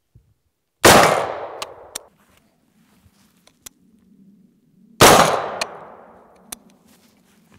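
Two single shots from an AR-15-style rifle, about four seconds apart, each a sharp crack followed by an echo that dies away over about a second. Faint clicks and a few small metallic clinks fall between and after the shots.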